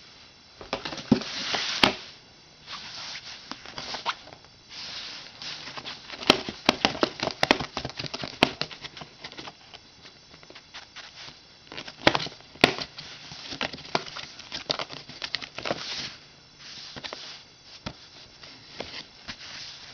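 Scratching, scrabbling and rustling on a cardboard shoebox, in irregular spurts with sharp clicks, as the pet inside moves against the box and a hand works at a hole in its side.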